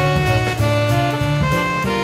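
Background music: an upbeat jazzy tune with horn-like lead notes over a bass line.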